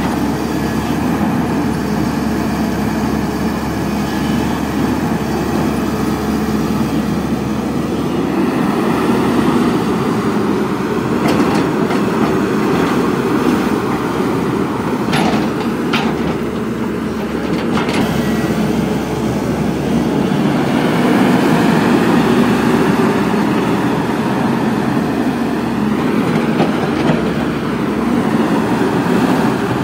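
Caterpillar 320D hydraulic excavator working close up: its diesel engine runs steadily under load as the machine digs. A few brief knocks are heard around the middle.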